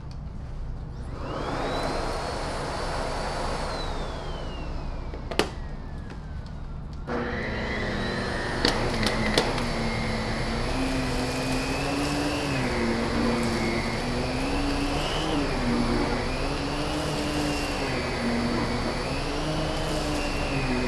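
Miele Complete C3 Brilliant canister vacuum switched on: the motor spins up with a climbing whine about a second in, and the sound steps up and grows fuller about seven seconds in. After that its pitch rises and falls in a slow, even rhythm as the floor head is pushed back and forth over carpet.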